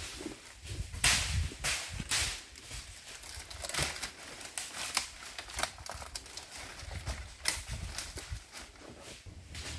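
Dry, fallen nipah palm fronds crackling and snapping under footsteps as people climb over a pile of them: irregular sharp cracks with rustling in between.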